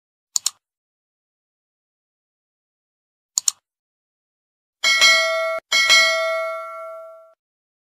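Subscribe-button sound effect: two quick double mouse clicks about three seconds apart, then a notification bell chime struck twice, the second ringing out for about a second and a half.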